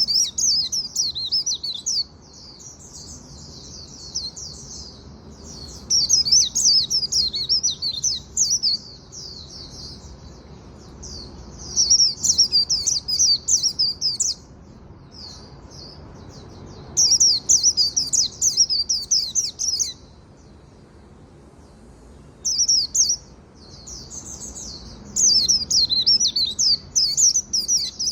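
A white-eye (vành khuyên) singing its rapid, high twittering 'líu' song in bouts of one to three seconds, about six times, with short pauses between them.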